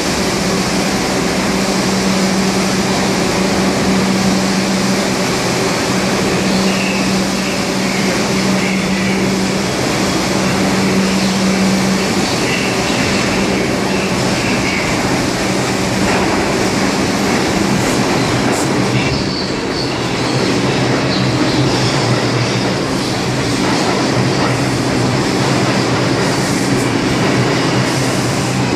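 New York City subway trains in an underground station: a steady hum from a train standing at the platform, with another train approaching and pulling in alongside in the second half, its wheels rumbling and squealing on the rails.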